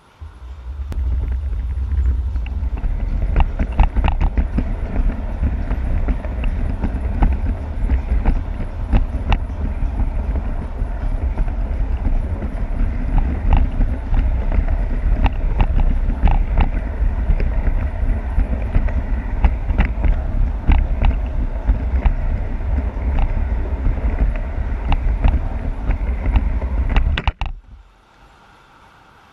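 G scale model train running along its track, heard from a wagon in the train: a steady low rumble with many irregular clicks from the wheels over the rail. It sets off at the start and stops near the end.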